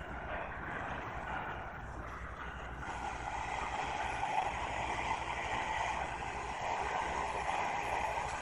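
Crowd noise in a sports hall: a steady murmur of many voices that grows a little louder about three seconds in.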